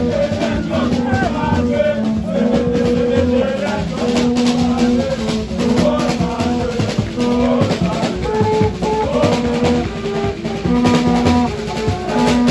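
Music with a steady drum beat under held, changing notes.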